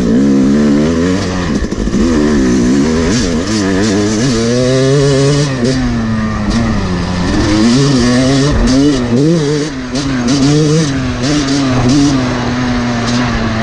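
Yamaha YZ250 two-stroke single-cylinder dirt bike engine being ridden hard on a trail, its pitch rising and falling over and over with throttle and gear changes, holding steadier in a few stretches.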